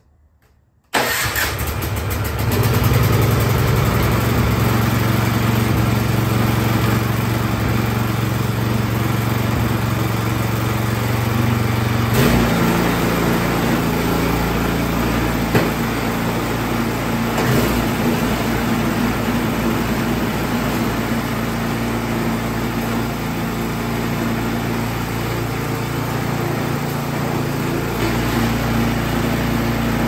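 Troy-Bilt Storm 2665 snowblower's single-cylinder four-stroke engine catching suddenly about a second in, then running steadily, its note shifting to a different steady pitch about twelve seconds in. The engine starts and runs after repair for a no-start.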